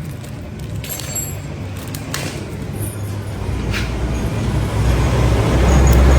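A motor vehicle engine running with a steady low hum that grows louder over the second half, with a few sharp clicks or knocks before it.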